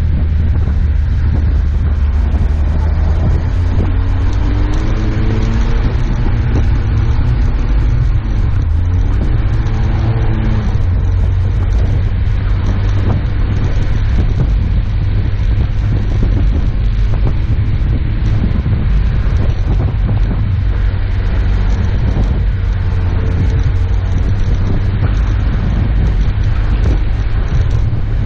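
Off-road 4x4 driving on a snow-covered road: its engine and tyres make a steady, loud low rumble, with wind noise over the camera mounted on the bonnet.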